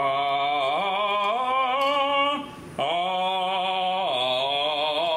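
A man singing long, held notes with a wavering vibrato, climbing in pitch in steps, in two phrases with a short break about two and a half seconds in.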